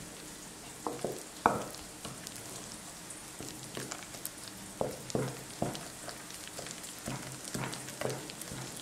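Wooden spoon stirring and beating wet mashed potatoes in a glass bowl: soft wet squelching with irregular short knocks and slaps, about ten of them.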